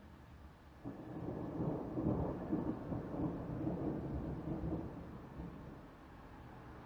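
Thunder rumbling: it starts suddenly about a second in, is loudest a second later, and dies away over the next few seconds.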